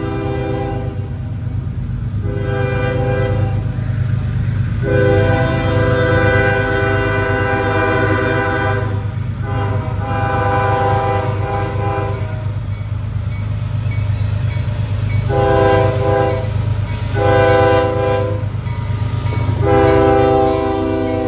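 CSX freight diesel locomotive air horn sounding a string of about seven blasts, some about four seconds long, with a gap of about three seconds past the middle. A steady low diesel engine rumble runs under the horn as the locomotives come up.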